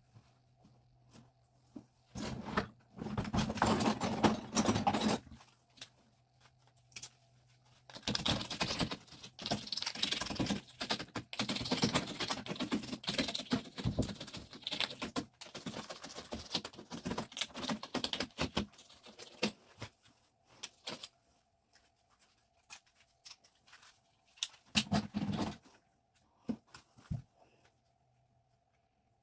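Small parts and tools being handled during a faucet rebuild: irregular bursts of clinking, rattling and rubbing, with a long busy stretch in the middle and quiet pauses between.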